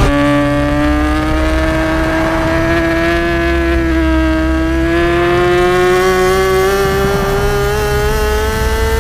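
Superbike engine running at high revs under load, its pitch climbing slowly and steadily through one long pull, with a slight dip about four seconds in.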